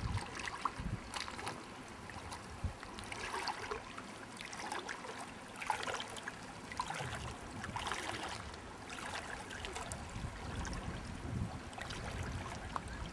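River water flowing and trickling in a steady rush, with scattered small splashes.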